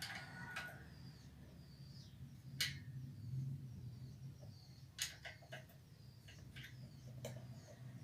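Scattered sharp clicks and knocks of parts and tools being handled during a generator engine repair, the loudest about two and a half seconds and five seconds in. Faint bird chirps and a low steady hum sit behind them.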